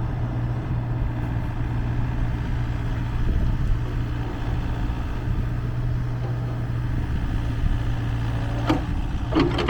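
Kubota U48-4 mini excavator's diesel engine idling steadily, with a couple of short, sharp clanks or squeaks near the end.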